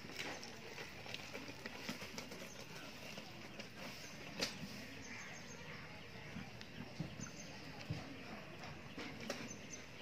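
Sojat and Pateri goats' hooves tapping and scuffing on hard dirt, a scattered handful of light knocks over steady outdoor background noise, with one sharper knock about four and a half seconds in.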